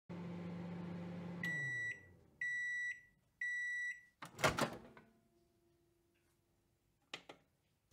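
Microwave oven running with a low hum that winds down, then three beeps signalling the end of the cycle. The door then clunks open, the loudest sound here, and a couple of faint clicks follow near the end.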